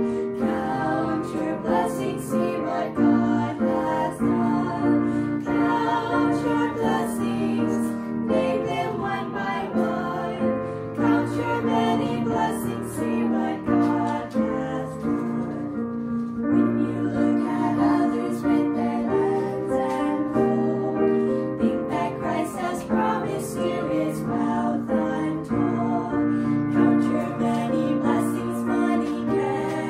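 Voices singing a hymn with piano accompaniment.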